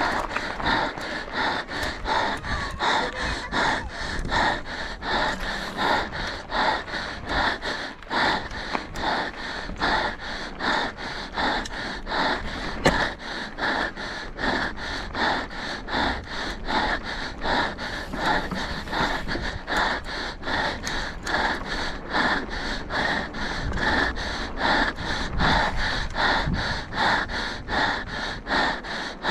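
A mountain biker's heavy, rapid breathing close to the microphone, rhythmic at about two breaths a second: hard panting from exertion.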